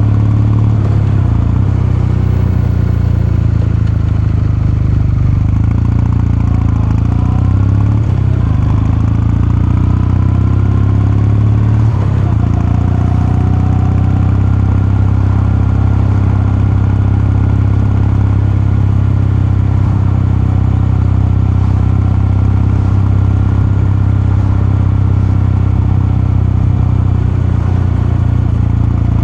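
Kawasaki Meguro K3's air-cooled 773 cc parallel-twin engine and exhaust running under way. The engine note shifts briefly a few times in the first dozen seconds, then holds a steady cruising note.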